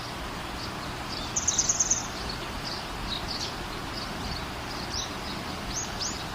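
Steady hiss of falling rain with birds chirping over it. A quick trill of about seven high notes, about a second and a half in, is the loudest sound, and a few short high chirps come near the end.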